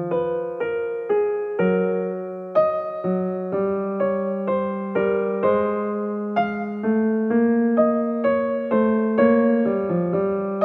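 Background music: a keyboard instrument playing a slow, even melody of single notes, about two a second, over held lower notes.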